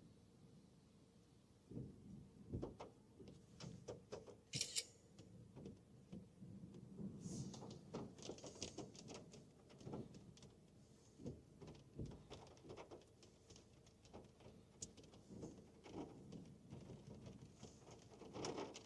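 Faint, irregular light taps and knocks inside a car, scattered unevenly with a few sharper ticks, over quiet cabin tone.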